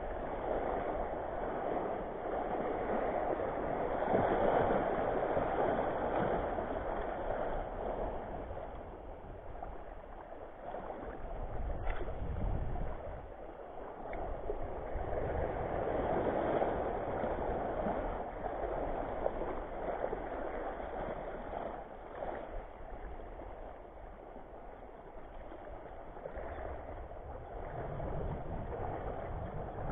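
Small sea waves washing and gurgling over shallow reef rocks, a steady surge of water that swells and ebbs every few seconds.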